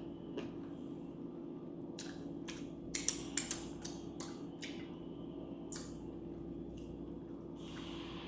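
Close-up eating sounds: crisp crunches of fried chicken being bitten and chewed, a few sharp crunches about two seconds in, a quick cluster around three to four seconds, and one more near six seconds, over a steady low hum.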